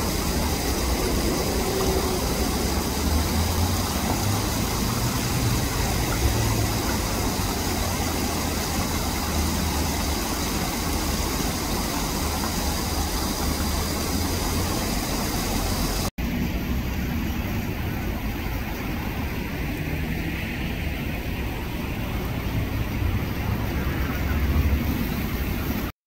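Steady outdoor background noise with a low rumble and an even hiss, no distinct bird calls standing out; its character changes abruptly at a cut about sixteen seconds in.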